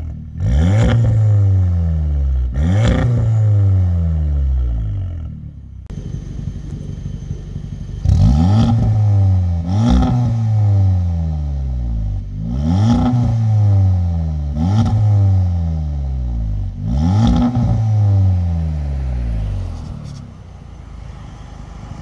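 Audi S3 8V's turbocharged 2.0-litre four-cylinder engine and exhaust, revved from idle in seven quick blips. Each rev climbs sharply and falls back more slowly, before the engine settles to idle near the end.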